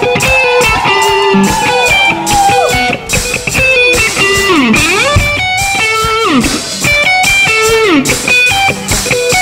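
Live band playing an instrumental intro led by a Fender Stratocaster electric guitar, its lead line full of bent and sliding notes, over a rhythmic band backing.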